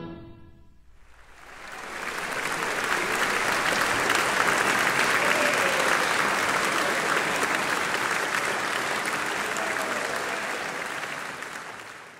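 The last sustained note of violin and piano dies away, and about a second later an audience starts applauding. The clapping builds within a couple of seconds, holds steady, then fades out near the end.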